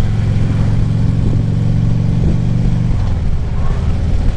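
Harley-Davidson V-twin touring motorcycle engine running under way, with wind and road noise; its pitch drops slightly about three seconds in as the throttle eases.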